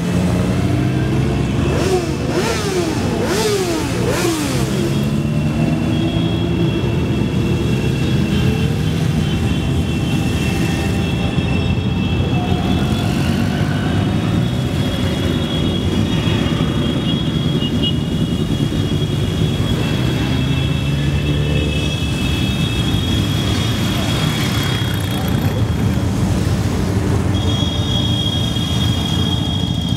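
A procession of motorcycles riding past one after another, their engines making a steady low rumble. Several bikes rise and fall in pitch as they pass a few seconds in.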